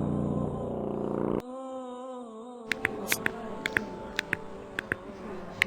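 Synthetic intro sound effects: a dense low rumbling drone that cuts off abruptly about a second and a half in, a short wavering tone, then a run of irregular sharp clicks over faint held tones.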